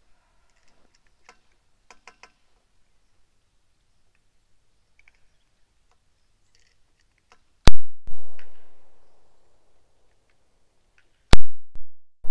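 Handgun shots: a few faint clicks, then two sharp, loud cracks about four seconds apart, each followed by a quick echo and a fading rumble, with a third shot right at the end.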